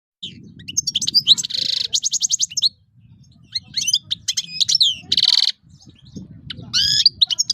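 European goldfinch singing: rapid twittering phrases of quick high notes with buzzy trills, in three bursts with short pauses between.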